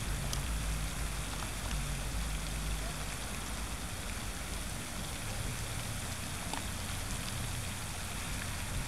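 Steady outdoor background noise: an even hiss, with a low rumble that is strong for the first few seconds, fades, and returns about halfway through. A couple of faint clicks.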